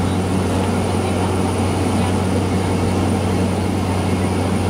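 Cabin noise of a Cessna 208 Caravan climbing out after takeoff: its Pratt & Whitney PT6A turboprop engine and propeller running steadily, a loud, even low drone with rushing air noise over it.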